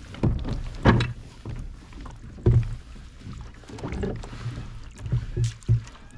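Water splashing and dull knocks against a plastic kayak as a fish is scooped up in a landing net and lifted from the water, with several irregular thumps, the loudest about a second in and again about two and a half seconds in.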